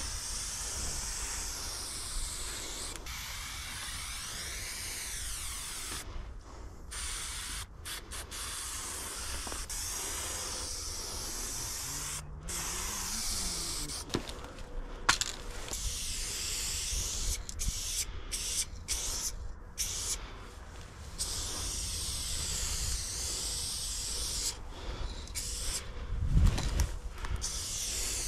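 Aerosol spray-paint can hissing in long bursts as lines are sprayed onto a concrete wall, with short breaks between strokes. There is a brief low thump near the end.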